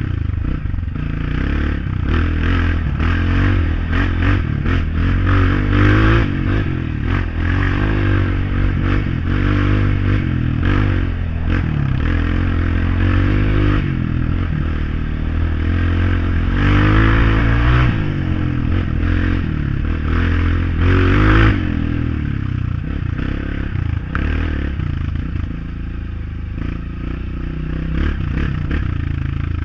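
Honda CRF dirt bike engine riding over a rough gravel road, revving up and down, with stones clattering and scraping under the tyres. About two-thirds of the way through the engine drops to a lower, quieter note.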